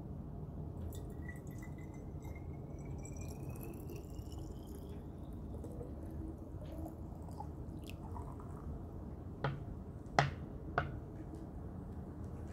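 Water poured from a plastic bottle into an amber glass bottle, the filling note rising steadily in pitch as the bottle fills. Near the end, three short sharp knocks, the middle one loudest.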